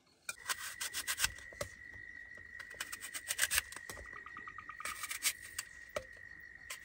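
A small knife slicing through a crisp apple held in the hand: runs of quick crunchy cuts, with a steady high tone behind them.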